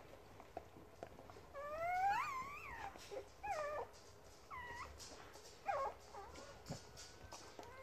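Newborn Springer Spaniel x Kelpie puppies squealing and crying as their mother licks them. A long rising-and-falling cry about two seconds in is the loudest, followed by a few short, high squeaks and a faint drawn-out whine near the end.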